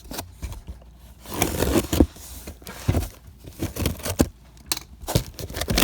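Cardboard and plastic packaging being handled and sorted through by hand: scraping, crinkling and a string of light knocks.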